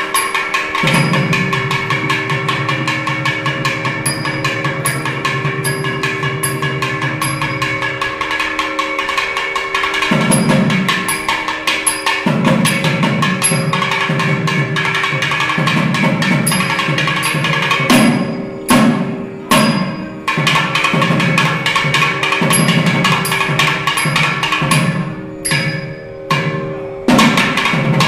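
Thavil drums playing a fast percussion solo of sharp cracking finger strokes and deep bass strokes over a steady drone, with two brief pauses in the drumming, about two-thirds in and near the end.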